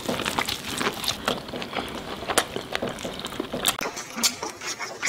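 Two people eating fried chicken wings close to the microphone, chewing and pulling meat off the bones, heard as a steady run of irregular sharp clicks.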